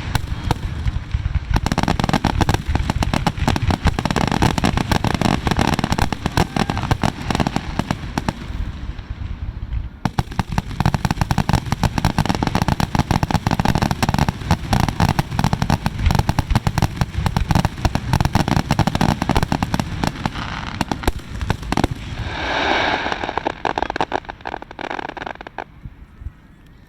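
Fireworks display going off in a rapid, continuous barrage of bangs and crackles, with a louder swell a few seconds before the end, after which the bursts die away.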